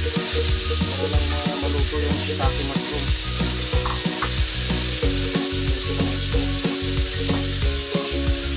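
Beef stock sizzling with shiitake mushrooms and beef in a hot nonstick wok, a steady hiss, while a wooden spatula stirs and scrapes against the pan in many quick clicks and knocks.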